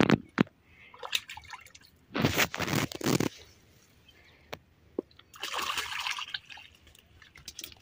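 Water splashing and sloshing at the river's edge as a hooked eel is landed, in a loud burst about two seconds in and a longer, softer stretch about five seconds in, with a few small knocks.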